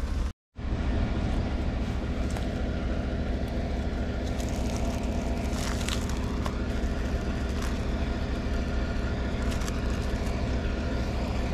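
A truck driving: a steady low engine and road drone, broken by a moment of silence just after the start.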